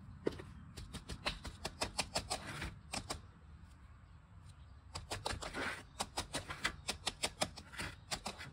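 Quick runs of light clicks and taps, several a second, from fingers working small hard granules of top dressing around a potted succulent in a ceramic pot. There are two runs, with a short lull between them near the middle.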